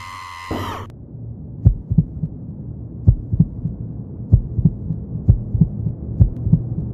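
Cartoon heartbeat sound effect: paired thumps, lub-dub, roughly once a second over a steady low drone. A short pitched sound ends about a second in, before the beats start.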